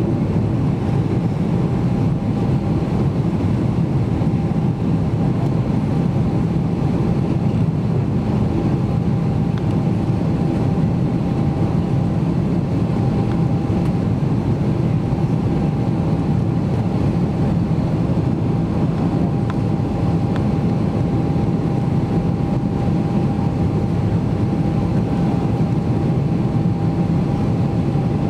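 Steady cabin roar of a Boeing 777-300ER climbing shortly after takeoff, its GE90-115B engines and the airflow heard from a seat over the wing, with a thin steady whine running through it.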